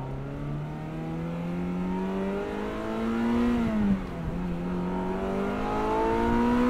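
Car engine accelerating, its pitch climbing steadily, dropping back about four seconds in at a gear change, then climbing again.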